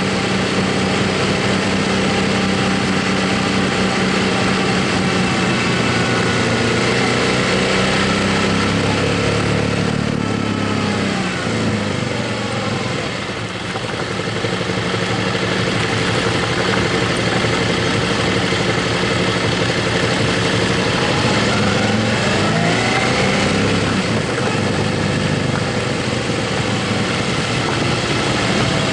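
Motorcycle engine running at a steady cruise under strong wind rush. About twelve seconds in the engine note drops as the bike slows. It then climbs again with rising pitch a little past twenty seconds in as it speeds up.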